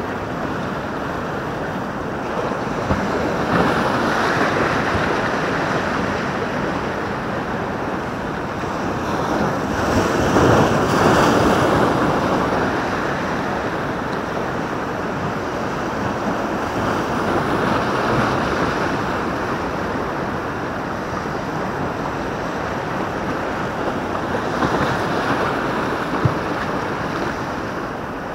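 Sea waves breaking and washing over the rocks of a breakwater, a steady surf noise that swells with each surge every several seconds, loudest about ten seconds in. Wind buffets the microphone.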